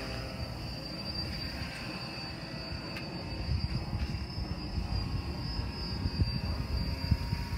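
Uneven wind rumble on the microphone with a steady high-pitched whine running underneath.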